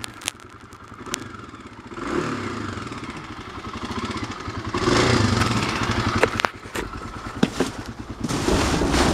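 Clattering and rustling as a dumpster is opened and the cardboard boxes and plastic bags inside are handled, with a few sharp knocks, over a steady low rumble. It grows louder about five seconds in.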